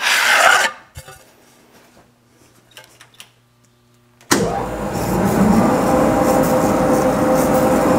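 A brief scrape at the start, then, about four seconds in, a DoAll vertical band saw is switched on: its motor and blade start suddenly, with a pitch rising briefly as it comes up to speed, then run steadily at a loud, even level.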